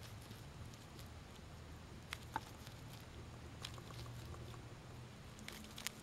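African pygmy hedgehog chewing on a mesh mint stick, its bites giving faint scattered clicks and crackles, with a few sharper ones about two seconds in and near the end. A faint steady low hum runs underneath.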